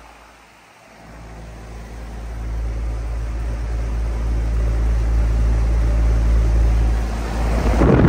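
Payne PH14 heat pump outdoor unit running in cooling mode: a steady low electrical hum from the compressor and condenser fan. Near the end the fan's discharge air blows across the microphone as a loud rush.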